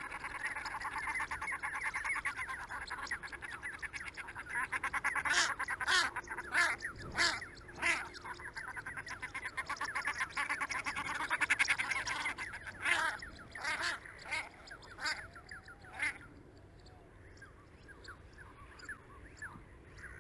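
A flock of ducks calling: a dense run of rapid quacking, with louder single calls standing out over several seconds, then thinning and fading after about 16 seconds.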